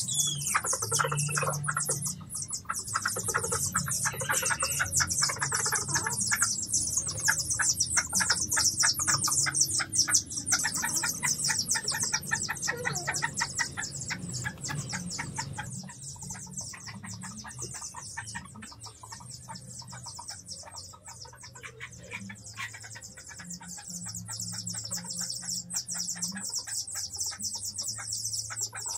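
Background music over chickens: chicks cheeping and a hen clucking, against a steady high chirring.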